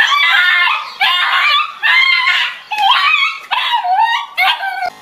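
A small dog screaming in a run of about six high-pitched, wavering yelps, each under a second long with short breaks between. These are panicked cries from a dog with a stuffed toy tiger on its back.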